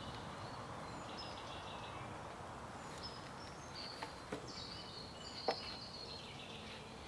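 Woodland birdsong: short high chirps and whistles repeating over a steady outdoor hiss. Three sharp knocks in the second half, the last the loudest, from the wooden shelter poles being handled and lashed together.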